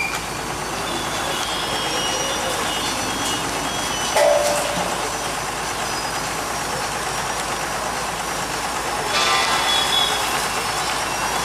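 Steady din of street traffic and heavy machinery at a demolition site, with a brief louder sound about four seconds in and a louder, tone-laden stretch a little after nine seconds.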